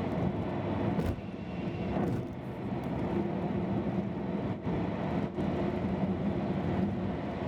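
Steady engine drone with a few faint clicks.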